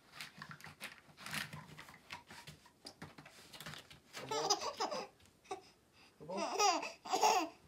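Baby babbling softly, then breaking into loud excited squeals of laughter in the second half, in two spells.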